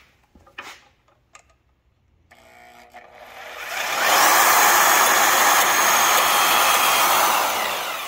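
Milwaukee portable band saw started about two seconds in, then its blade cutting through metal key stock with a loud, steady grinding rasp from about four seconds, fading away near the end.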